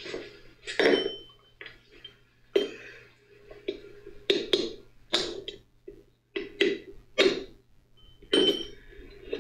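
Hammer striking a steel drift to drive a bearing out of the bore of a Kubota B3030's front-axle housing cover: about ten sharp, uneven metal-on-metal strikes, some with a brief ring.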